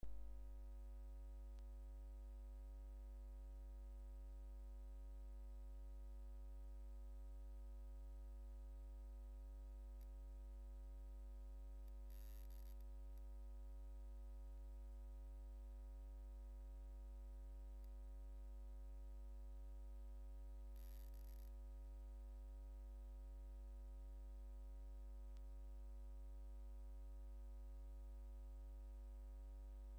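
Steady low electrical mains hum and nothing else, broken by two brief crackles of hiss about twelve and twenty-one seconds in.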